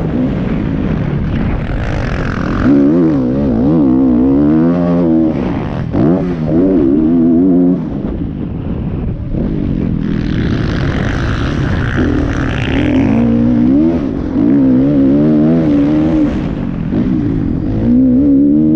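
Kawasaki KX450F single-cylinder four-stroke motocross engine under riding load, its revs climbing and dropping again and again as the bike accelerates and shifts. Partway through, a stretch of rushing hiss joins it.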